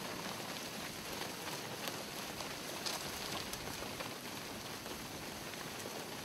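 A large herd of zebu cattle on the move along a dirt road: a steady, dense shuffle and patter of many hooves, with a few faint knocks.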